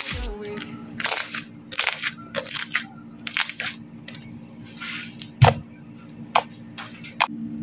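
Hands working slime: an irregular run of crackling pops and squishes, with one louder thump about five and a half seconds in.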